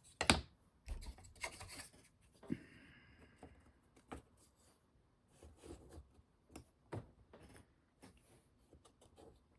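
Small model kit pieces being handled and fitted on a workbench: a sharp tap just after the start, a short rustle, then scattered light taps and scrapes.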